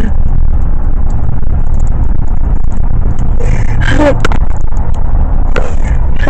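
Steady heavy low rumble of a patrol car as heard from its caged back seat, with faint rubbing and clicks as the camera is handled and a brief faint voice about four seconds in.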